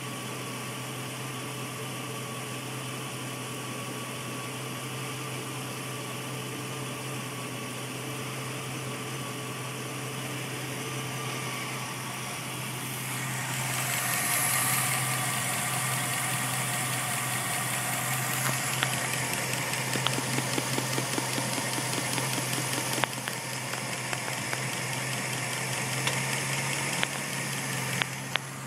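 A 2004 Jeep Grand Cherokee Overland's 4.7-litre H.O. V8 idling slightly rough, a steady low hum that grows louder about halfway through. From there a light, irregular ticking comes in over the idle. The rough idle turned out to be caused by failing catalytic converters.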